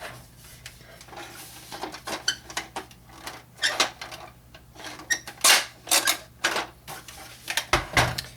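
Hard plastic parts of a vintage Kenner Slave I toy clicking, knocking and rattling as they are worked apart by hand: an irregular run of clicks and taps, the loudest about halfway through and just before the end.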